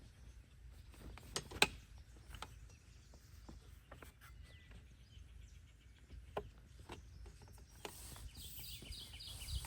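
Scattered light clicks and knocks from a folding cot tent's frame being unfolded and fitted together, the sharpest about a second and a half in. Near the end a bird chirps a quick run of repeated high notes.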